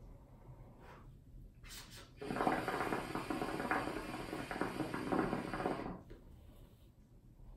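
Hookah water bubbling as a puff is drawn through the hose: a fast, dense gurgle that starts about two seconds in and lasts about three and a half seconds.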